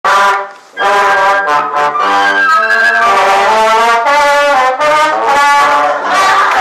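French horn and other brass instruments playing together, loud and close, in a run of short changing notes, with a brief pause about half a second in.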